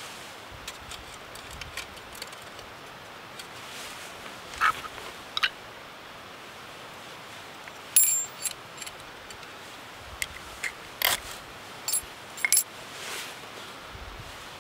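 Two light metallic clinks as a brass spirit burner is set into its stove stand. Then a run of short, sharp scrapes as a ferrocerium rod is struck with a scraper to throw sparks onto cotton tinder, the loudest coming about eight seconds in and the rest close together a few seconds later.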